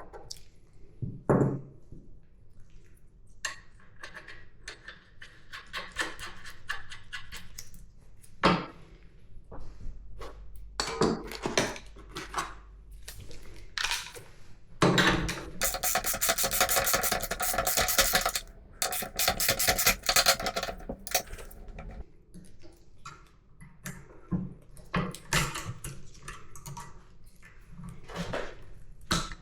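Metal motorcycle parts and hand tools clinking and knocking on a workbench during assembly, with a stretch of rapid, even clicking lasting several seconds about halfway through.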